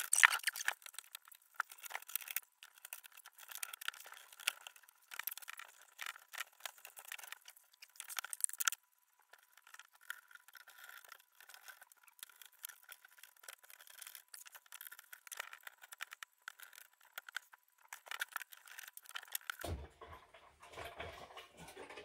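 Faint, rapid clicks, rattles and scrapes of hands dismantling a desktop PC case, unplugging cables and unscrewing parts. The footage is sped up, so the handling noise sounds thin and high. A few fuller knocks come near the end.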